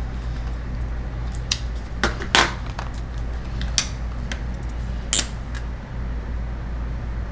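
Scattered sharp clicks and taps of small hard objects being handled, loudest about two seconds in, over a steady low hum.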